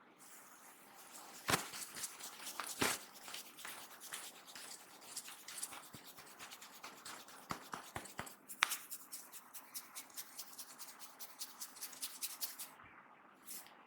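Hands massaging a head: fingers rubbing and scratching through hair with dry crackling and a couple of louder snaps in the first few seconds. About two-thirds of the way in this turns into a quick even run of clicks, about four or five a second, that stops shortly before the end.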